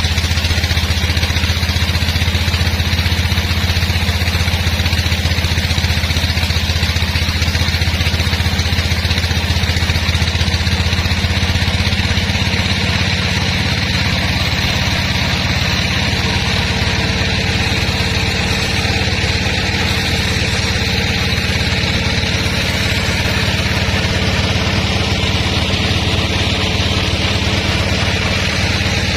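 Sawmill machinery running steadily: a low engine drone with an even hiss above it, unchanged throughout.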